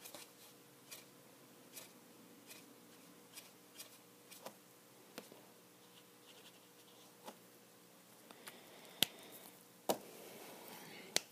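Faint, irregular ticks and scratches of a Copic alcohol marker's brush tip flicking short, light strokes on paper. Near the end, a few sharper clicks and a brief rustle as markers are handled.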